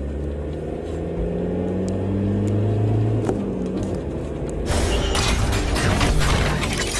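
Vehicle engine sound effect running steadily with a slight rise in pitch, dubbed over toy cars driving. About five seconds in, a louder, dense noisy sound effect takes over.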